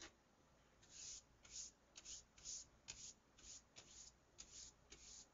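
Soft scratchy rubbing strokes, about two a second, after a single click at the start.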